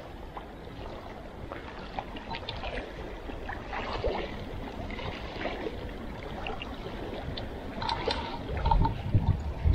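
Water lapping and trickling, with scattered small clicks and a louder low rumble near the end.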